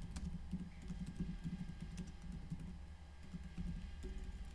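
Faint, irregular clicking of typing on a computer keyboard.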